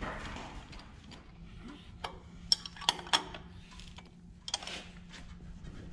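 Combination wrench clinking against metal while the bolts of a toothed drive pulley are fitted and tightened on an engine: three sharp clinks about two and a half to three seconds in, and a couple more near the end.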